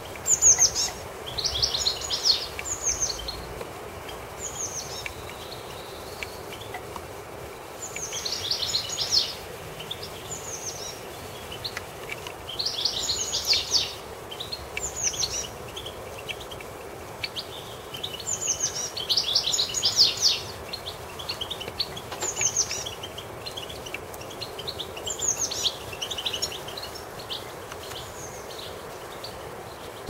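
Small garden songbird singing: short, high phrases of quick down-slurred notes, repeated every couple of seconds, over a steady background hiss.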